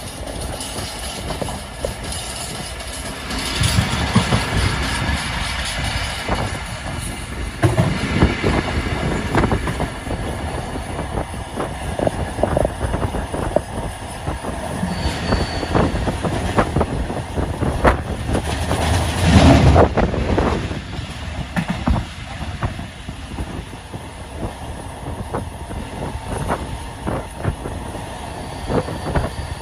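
Long rake of GATX freight wagons rolling by with a steady rumble of wheels and a run of clicks over rail joints. A brief high wheel squeal comes about halfway through, and a louder surge of rolling noise follows a few seconds later.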